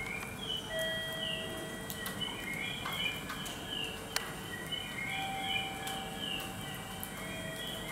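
Birds chirping and twittering in quick, high, repeated calls over a steady background hum, with one sharp click about four seconds in.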